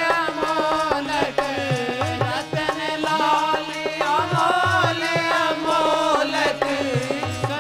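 Devotional bhajan music without words: tabla strokes under a continuous wavering melody line.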